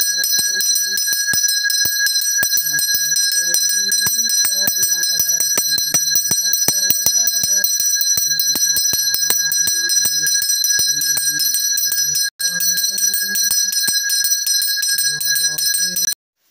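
Temple hand bell rung continuously, its clapper striking several times a second and the bell ringing on, over a low voice chanting during worship; it all cuts off suddenly near the end.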